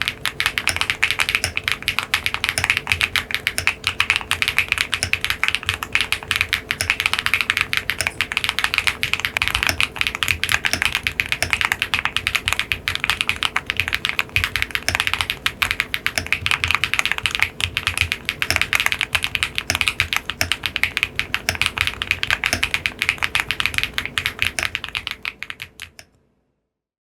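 Continuous fast typing on a CUB65 custom mechanical keyboard with linear switches, a dense run of clacky keystrokes that fades out near the end.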